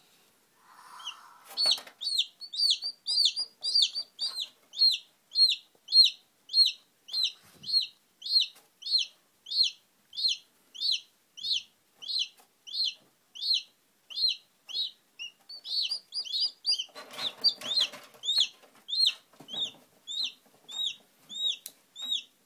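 Newly hatched chicken chick peeping: short, high, repeated peeps, about two a second, without a break. A brief rustle of movement among the eggs and shells comes about seventeen seconds in.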